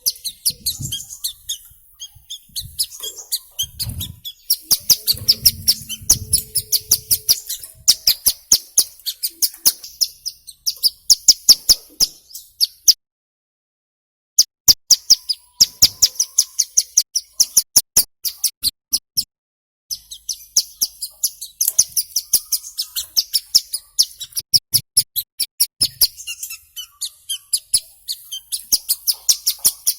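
Ciblek gunung, a prinia, calling in rapid trains of short, sharp, high chips. The trains come in bursts, and the recording cuts to dead silence twice, briefly, in the middle.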